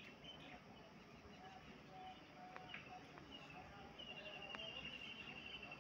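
Faint birdsong over a quiet background: scattered short chirps, then about four seconds in a longer trill that falls slightly in pitch.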